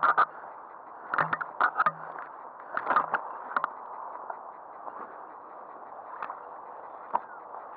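Handling noise from a gloved hand gripping and moving the camera: bursts of scraping, rubbing and knocking against the microphone through the first few seconds, then only a steady faint hiss with an odd tick.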